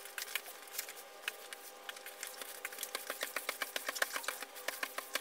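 Fabric being smoothed and re-rolled by hand on a sheet of cardboard: rustling with many small clicks and taps, getting busier toward the end, over a faint steady hum.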